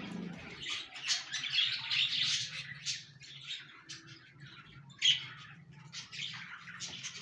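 Budgerigars chirping and chattering, with dense scratchy chirps at first, a sharp louder chirp about five seconds in, then fewer calls.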